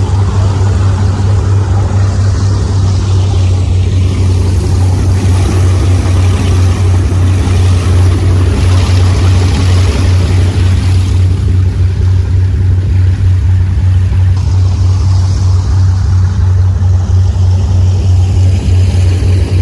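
Engines of a 1,000 hp Fountain 35 powerboat running underway at a steady pace, a loud low drone with rushing water and wind over it.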